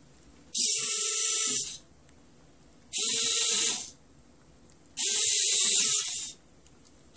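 Servo motors on a 3D-printed prosthetic hand whirring in three bursts of about a second each, winding the finger strings. By the end of the bursts the fist has opened fully.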